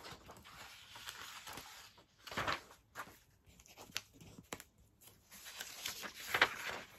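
Thin paper posters rustling and swishing as they are unfolded and laid flat on a stack, in a few short swishes with light taps in between.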